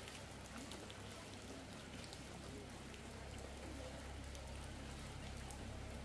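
Rain falling, with scattered single drops ticking on a surface close by. A low rumble grows toward the end.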